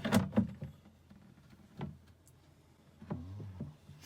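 Plastic clicks and knocks from the agitator handle of a Kildwick composting toilet being fitted into its socket: a quick cluster at the start and a single knock a little under two seconds in.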